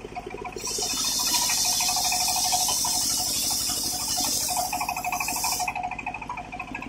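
A circular sawmill blade rips lengthwise through a teak beam: a loud, high hiss begins about half a second in and stops about a second before the end. Underneath it the saw's drive runs steadily with an even pulse.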